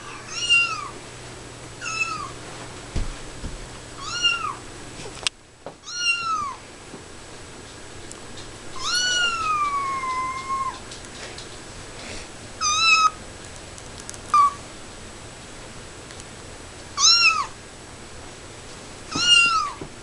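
Recorded cat meows played from a phone: about nine short, high meows a second or few apart, most of them alike in shape, with one longer drawn-out meow about nine seconds in.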